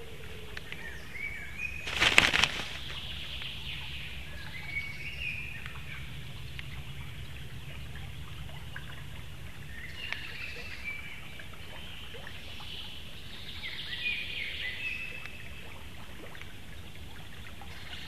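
Small songbirds chirping and singing in the surrounding forest, short phrases coming and going, over a steady low background hum. About two seconds in there is one loud, brief, noisy burst.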